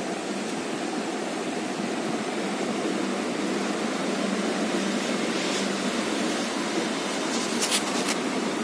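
Steady rushing background noise, with a few short crisp rustles about seven to eight seconds in.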